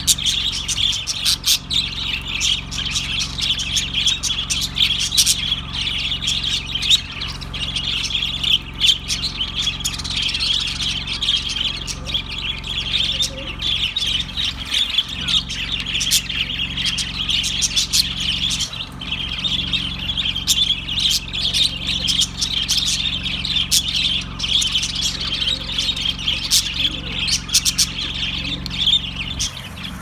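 A large flock of budgerigars chattering continuously, a dense mass of overlapping calls with many short sharp chirps.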